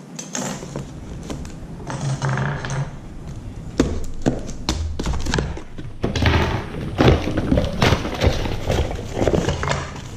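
A cardboard shipping box being opened and handled on a tile countertop: repeated thunks and taps, then a stretch of cardboard and plastic-bag rustling with clatter as the packaged parts are tipped out.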